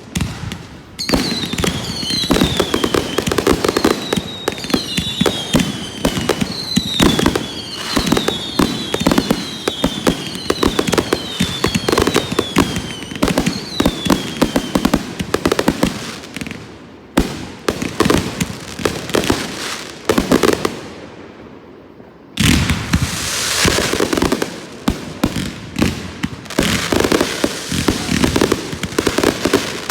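Fireworks going off: a dense, rapid crackle of small bangs, with a run of descending whistles over the first half. The crackle drops away briefly about two-thirds of the way through, then comes back suddenly and loud.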